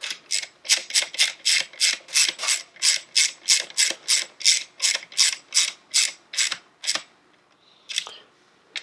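Ratchet wrench tightening the bolts of a dirt bike's front brake caliper guard: a steady run of sharp ratcheting clicks, about three a second, that stops about seven seconds in, with a couple more clicks near the end.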